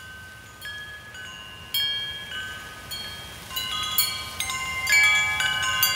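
Metal chimes ringing: many clear bell-like notes struck at irregular moments, each lingering and overlapping the others, growing busier and louder toward the end.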